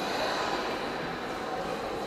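Steady background hubbub of a crowded indoor show hall: an indistinct wash of many distant voices and room noise, with a faint steady high whine.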